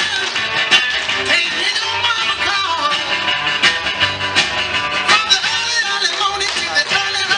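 Music with guitar.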